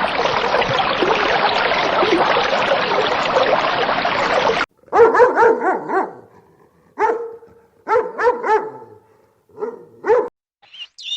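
A dog barking in short, high-pitched yaps, about a dozen in four quick clusters in the second half. Before that there is a steady, dense noise that cuts off suddenly.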